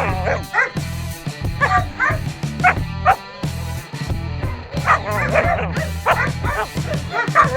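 West Siberian Laika hunting dog barking and yelping in quick, high-pitched bursts over background music.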